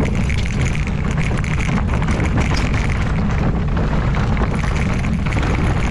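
Wind buffeting the microphone while a full-suspension mountain bike rattles and its tyres crunch over a rough dirt trail at speed on a steep descent, with dense, irregular clatter throughout.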